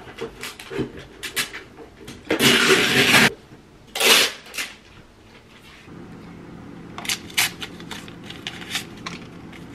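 Packing materials rustling and crinkling while an order is packed into a cardboard USPS Priority Mail box, with a loud noisy rustle lasting about a second and a shorter one soon after. After a cut, the paper envelope of a peppermint tea bag crinkles and tears in short crisp clicks over a steady low hum.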